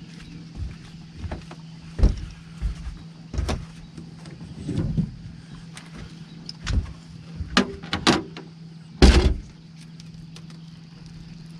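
Irregular knocks and thumps of rod, reel and boat handling while a fish is fought on rod and reel, about a dozen, the loudest about two seconds in and about nine seconds in. A steady low hum runs underneath.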